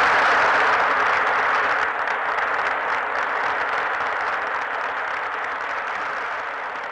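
Audience applauding on an old newsreel soundtrack, fading slowly.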